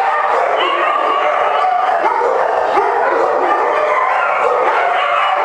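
Many kennel dogs barking and howling at once, a continuous din of overlapping voices.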